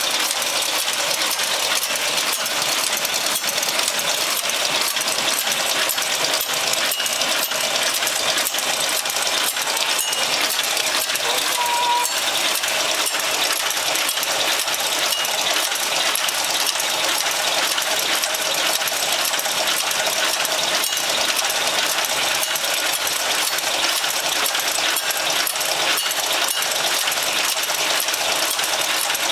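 Automatic incense-stick making machine running steadily: a fast, continuous mechanical clatter that does not change throughout.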